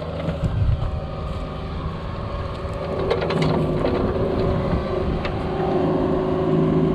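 Diesel engine of a Cat 304 mini excavator running steadily. It grows a little louder about three seconds in, with a few light clicks or clanks.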